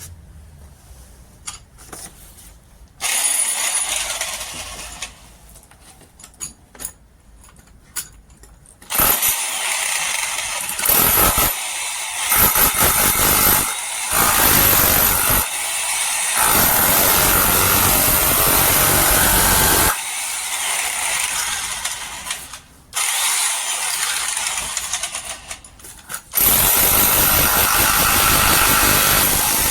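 Electric demolition hammer (VEVOR 1400 W) running in several bursts that start and stop. There is a short run about three seconds in, then longer, louder runs through the second half.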